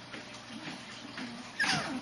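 Shiba Inu puppy whimpering: a few faint short whimpers, then about a second and a half in a louder high whine that falls steeply in pitch.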